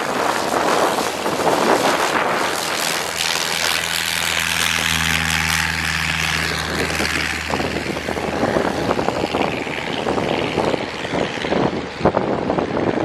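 Cessna 120 light plane's four-cylinder engine and propeller passing close at low power: a steady drone that comes up about three seconds in, is strongest around five to seven seconds in and fades away again. Heavy wind noise on the microphone throughout.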